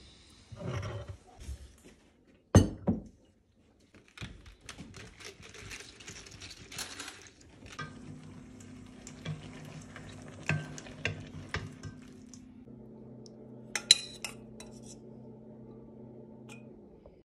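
Kitchen clatter: a sharp clink about two and a half seconds in, then pots, dishes and cutlery clinking and a wooden spatula stirring in a stainless steel pan, over a low steady hum in the second half.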